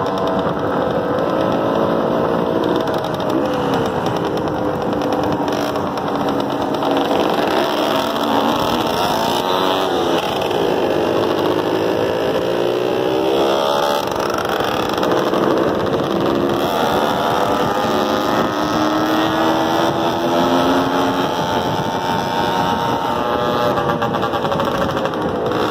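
Motorcycle engine running while riding, its pitch rising and falling again and again as the throttle opens and closes.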